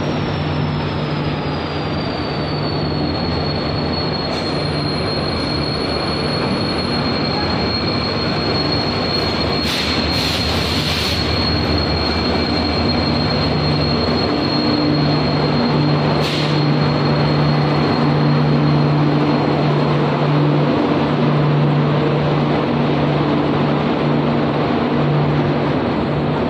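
A WDP4B diesel-electric locomotive and its passenger coaches rolling past along a station platform: a steady low diesel engine rumble over the noise of the coach wheels, with a thin high whine that slides down a little in the first few seconds and then holds. A short hiss cuts in about ten seconds in.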